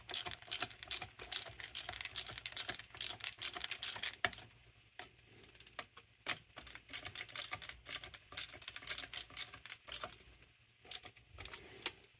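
Small metal carburetor parts and linkage being handled, with quick light clicking and rattling. The clicks come densely for about four seconds, pause, then start again about seven seconds in.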